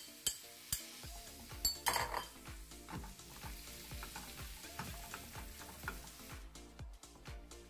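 A spatula stirs and scrapes chicken and mixed vegetables frying in a non-stick pan, with sharp taps against the pan in the first couple of seconds and light sizzling throughout.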